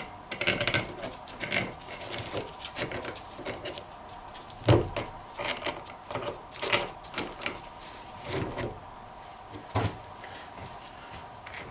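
Steel parts of an Eaton two-speed truck rear axle differential being handled and taken apart by hand: irregular clinks, scrapes and knocks, the loudest knock about five seconds in.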